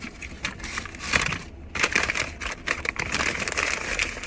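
Close-up crunching of someone eating a KFC crispy fried chicken sandwich: a dense run of crackles and small crunches.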